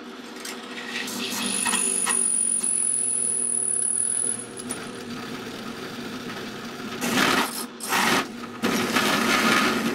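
Drill press running with a ground-flat driver bit spinning and pressed down on a steel fender washer, metal rubbing hard on metal to heat it for friction welding. A high squeal starts about two seconds in and stops about four seconds in; near the end come three loud bursts of rough grinding as the bit is forced down under heavy load.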